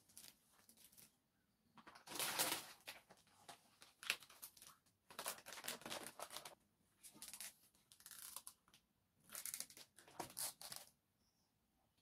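Grocery packaging crinkling and rustling as items are handled, in about seven short bursts with brief pauses between them.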